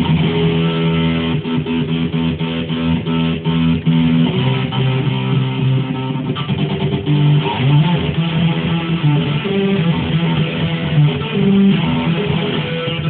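Electric guitar with EMG active pickups played through an amp, its sustained notes chopped on and off in quick stutters by a kill switch cutting the signal.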